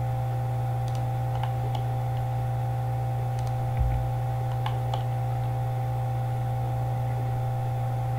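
Scattered computer mouse and keyboard clicks over a steady electrical hum, with a soft low thump about four seconds in.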